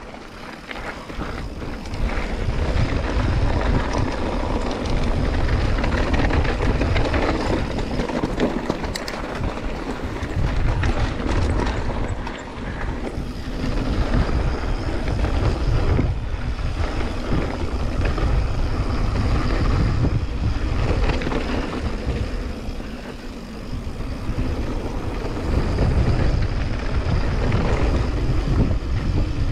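Wind buffeting an action camera's microphone as a mountain bike rolls fast downhill, with tyre noise on gravel and dirt; the rush swells and eases, dipping briefly twice.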